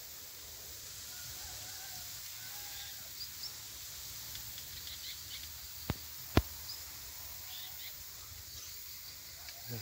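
Steady outdoor rural background hiss with faint scattered bird chirps. Two sharp clicks about half a second apart come about six seconds in, the second one louder.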